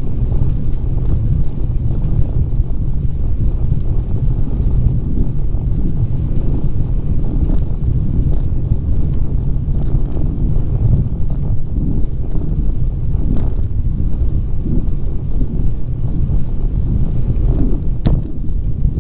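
Wind buffeting the microphone of a camera riding along on a bicycle, a steady low rumble, with a single sharp click near the end.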